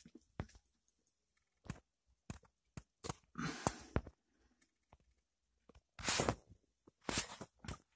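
Scattered clicks and short scuffing, rustling noises of a person moving about in a cramped space. The loudest scuffs come about three, six and seven seconds in.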